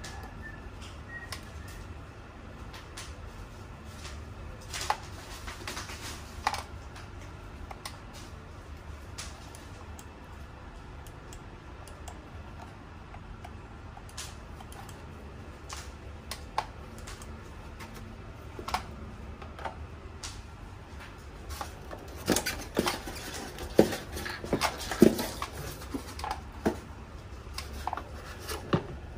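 Scattered plastic clicks, taps and knocks from handling a steam iron, its steam-generator base and its foam packaging inserts, with a denser run of louder knocks about three-quarters of the way through.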